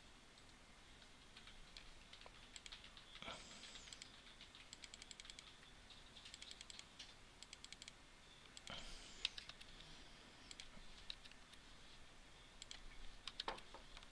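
Faint computer keyboard typing: scattered keystrokes and clicks in short runs.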